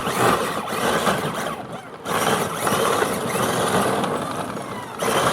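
Upgraded battery-powered Power Wheels ride-on toy car driving off: a steady whirr of its electric drive motors and the rumble of its plastic wheels on the ground. The sound dips briefly about two seconds in, then carries on.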